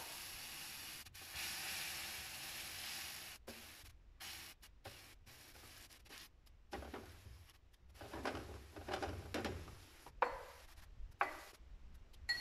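Tomato sauce sizzling in a frying pan, the hiss dropping away after about three seconds, then a spatula stirring and scraping through the sauce in short strokes. A few sharp knocks near the end.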